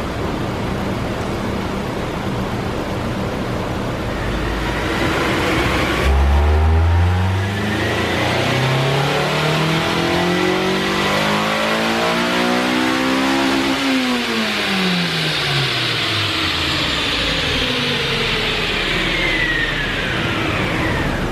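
Honda S2000 CR's 2.2-litre four-cylinder engine on a dyno pull. It runs steadily, then goes to full throttle about six seconds in and climbs smoothly in pitch toward redline for about seven seconds. It then drops off sharply as the throttle closes, and a high whine fades away as everything spins down near the end.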